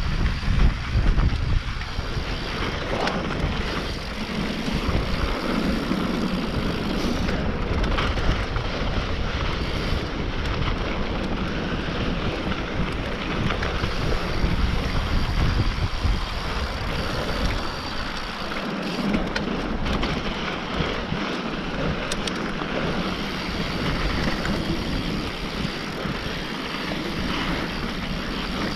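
Wind rushing over the camera microphone and knobby mountain bike tyres rolling over a dirt trail during a descent, a steady rushing noise with a few brief clicks of bike rattle.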